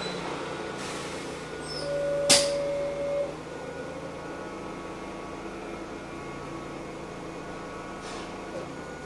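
Heuliez GX317 LPG city bus idling, heard from inside the cabin as a steady engine hum. About two seconds in, a sharp click and a steady tone lasting about a second and a half sound over it.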